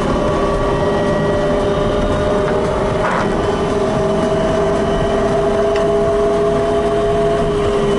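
Inside the cabin of a SAM three-wheeled electric car under way: road and tyre noise with the electric drive's steady whine, which rises a little in pitch and eases back near the end.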